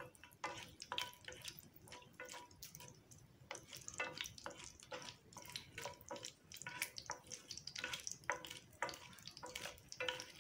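Tempering spices (mustard seeds, cumin, chana dal and dried red chillies) crackling and spluttering in hot oil in a nonstick frying pan, with a wooden spatula stirring through them.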